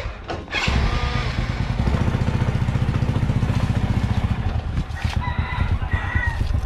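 Small single-cylinder four-stroke engine of an underbone motorcycle (xe số) starting about half a second in, then running with an even, rapid low pulse.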